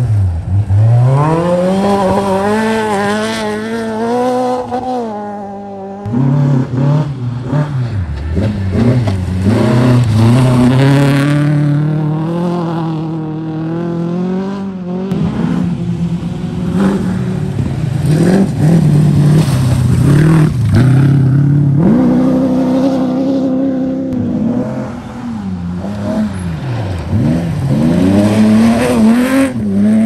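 Rally cars passing one after another on a gravel stage, their engines revving hard. The engine note climbs and then drops again and again as each car accelerates and lifts off.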